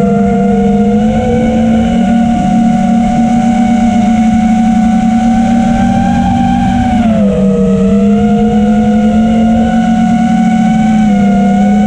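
Brushless motors and 5-inch propellers of an FPV racing quadcopter, heard from its onboard camera: a loud, steady buzzing whine that drops in pitch about seven seconds in, then climbs back toward the end.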